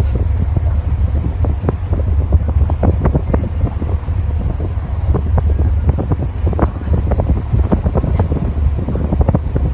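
Wind buffeting the microphone aboard a passenger ship at sea, with irregular crackling gusts over a steady low rumble.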